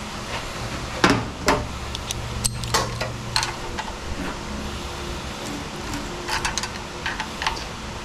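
Metal hand tools clinking and knocking against steel engine accessory brackets and bolts as a wrench and a ratchet are put on and worked. There are about a dozen sharp clinks, some single and some in quick runs, over a steady low hum.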